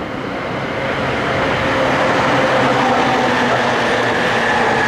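JR Yamanote Line E231-500 series electric train running past: the rumble of wheels on rail swells over the first second or so, then holds steady, with a faint whine that falls slowly in pitch.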